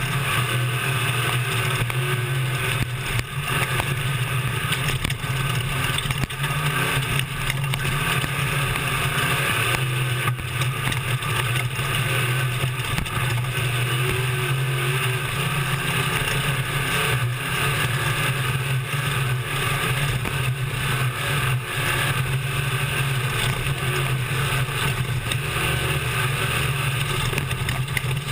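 Desert race truck's engine running hard at steady high revs, heard from inside the cab, over a constant rushing noise with occasional brief knocks.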